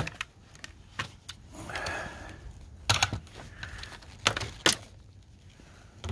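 Handling noise from dismantling a plasma TV: scattered sharp clicks and knocks, with a brief soft rustle about two seconds in, as a gloved hand works over its circuit boards and metal chassis.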